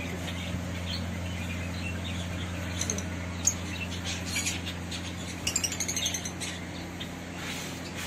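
Caged lovebirds chirping and chattering in short, high calls, with a quick run of sharp chirps a little past halfway, over a steady low hum.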